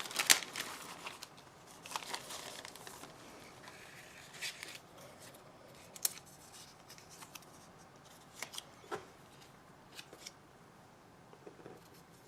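Plastic and paper rustling as the kit's packaged decal sheets are handled, with scattered clicks and taps. Busiest in the first few seconds, then only occasional light clicks.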